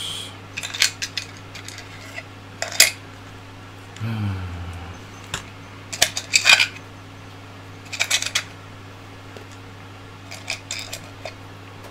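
Small steel screws and nuts clinking against each other and a small plastic parts box as they are picked through, in several short clusters of sharp clicks.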